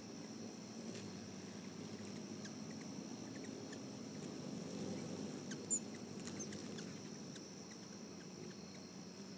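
Steady, high-pitched insect trilling with a low rumble under it and a few faint ticks, broken by one short, sharp, high click or squeak a little past halfway through.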